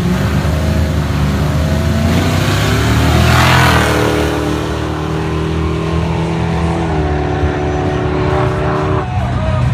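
Two drag-racing vehicles, a pickup and a car, revving at the line, then launching with a loud burst of engine and tyre noise about three and a half seconds in. They accelerate hard down the strip, the engine note dropping at a gear change about seven seconds in.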